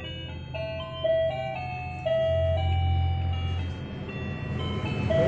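A simple electronic jingle, a melody of single beeping notes stepping up and down, over a steady low motor hum that grows louder in the middle.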